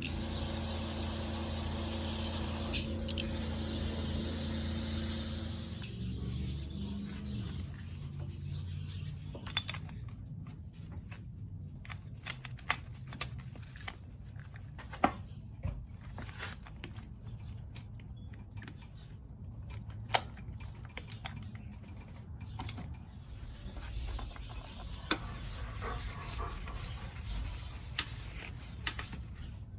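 An electric pressure washer runs, its motor humming under the hiss of the spray, with a short break in the spray about three seconds in. Around six seconds in the spray stops and the motor winds down. Scattered clicks and taps of parts and tools being handled follow.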